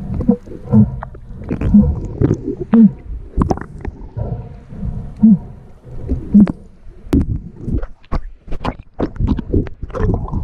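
Underwater sound picked up through a camera housing: muffled low rumbling with many sharp clicks and knocks as a speared coral trout is gripped and handled on the spear shaft, mixed with short low groaning tones that bend in pitch.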